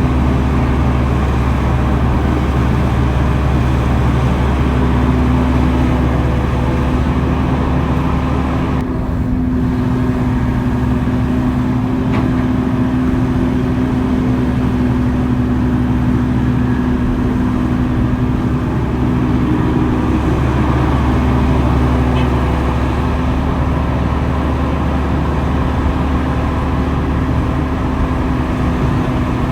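Heavy diesel engine of earthmoving machinery running steadily under load, with a brief easing about nine seconds in.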